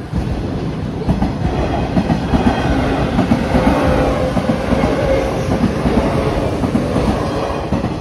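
Train passing close by over a level crossing, its wheels clattering over the rail joints. The sound builds in the first second, stays loud through the middle with a steady whine for a few seconds, and eases off near the end.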